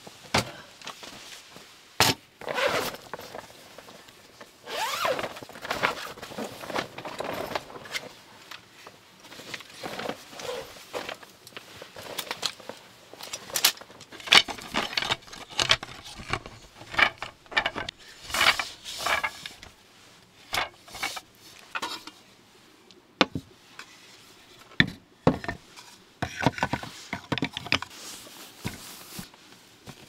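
Camping gear being set up by hand: irregular clicks, knocks, scrapes and rustles, among them the wooden slats of a roll-up camp table being unfolded and set down.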